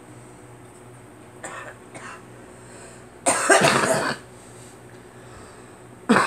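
A girl coughing: a loud cough lasting nearly a second about halfway through, and another loud cough right at the end, with a couple of faint short sounds before them.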